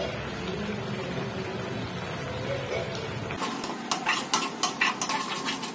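Masala sizzling in a metal kadai. From about three and a half seconds in, a spatula scrapes and clicks against the pan, two or three strokes a second, as the turmeric and chili powder are stirred in.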